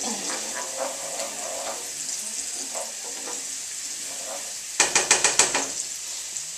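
Scallions sizzling in melted butter and oil in a frying pan, with a wooden spoon stirring and knocking against the pan now and then. About five seconds in, a quick run of about eight sharp clicks lasting under a second.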